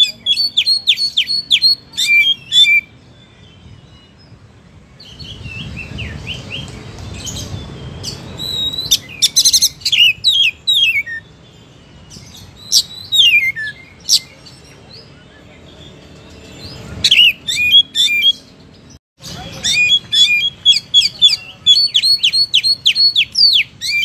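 Oriental magpie-robin singing in energetic bursts of fast, sharp whistled notes with short pauses between phrases. A faint low rumble sits under the song for a few seconds near the middle.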